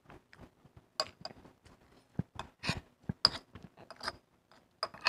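Metal spoon clinking and scraping against a ceramic bowl in a string of short, irregular clicks, some with a brief ring, busier in the second half, with chewing between them.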